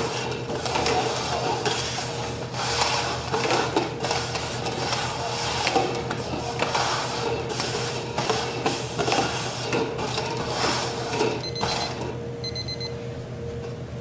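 Red plastic cups being slid and shuffled quickly across a wooden tabletop: a busy scraping and knocking that stops about eleven and a half seconds in. Then come a few short, high electronic timer beeps as the countdown runs out.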